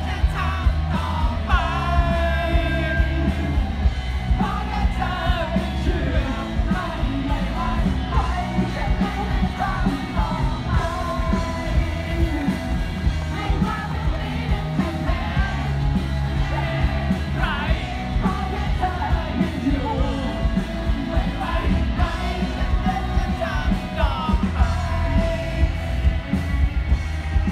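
Live rock band playing through a loud PA: a male singer over electric guitars, keyboards and drums with a steady beat, heard from the crowd.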